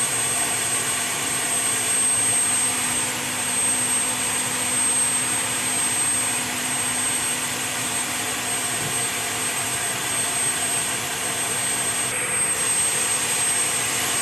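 UH-60 Black Hawk helicopter's turbine running: a loud, even rush with a steady high whine over it.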